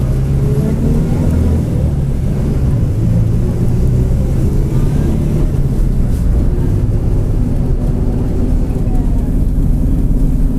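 Mercedes-Benz OF-1722M bus under way: a steady diesel and drivetrain drone with the growl of its differential.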